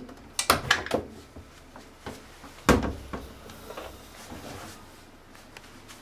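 A Panasonic NA-168VG2 front-loading washing machine's door being unlatched and pulled open, with a quick run of clicks, then a single sharp knock about two and a half seconds in. After that comes softer rustling and handling as the towel is taken out of the drum.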